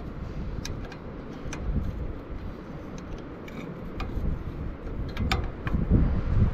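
Several light, irregular clicks and taps of small metal parts and tools being handled while servicing a tiller engine, over a low rumble.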